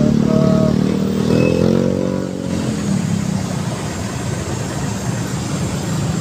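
Motorcycle engine in slow traffic, rising in pitch as it accelerates in the first two or three seconds, then settling into steady engine and road noise.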